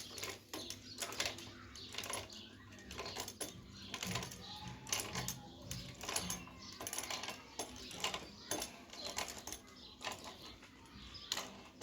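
Irregular light clicks and clinks of small metal tools and parts being handled during motorcycle repair work, with a faint voice in the middle.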